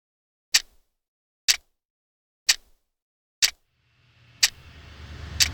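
Sharp clock-like ticks about once a second, then from about four seconds in a rumbling swell rising under them: an edited intro sound effect.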